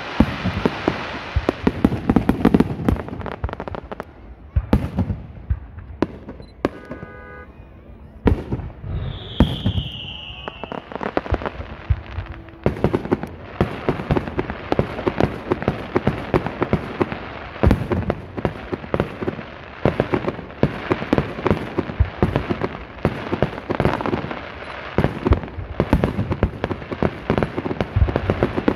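Aerial fireworks bursting: repeated booms of shells with dense crackling stars. A quieter lull comes a few seconds in, with a brief falling whistle, and then a rapid barrage of bangs and crackles.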